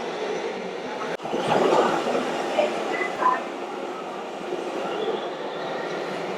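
Steady mechanical running noise in a busy hall, typical of model RC trucks and machines at work, with a brief break just after a second in, a louder stretch right after it, and two short high beeps about three seconds in.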